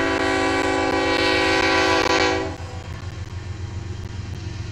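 Diesel freight locomotive's horn blowing one long, loud, steady blast that cuts off about two and a half seconds in. The low rumble of the passing locomotives goes on after it.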